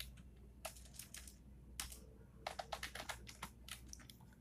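Computer keyboard typing: faint, irregular keystrokes, some single and some in quick runs of a few.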